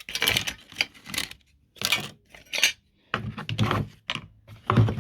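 Small loose chainsaw parts clinking and clattering as they are handled and set down on a bench, in a string of short, sharp knocks and rattles.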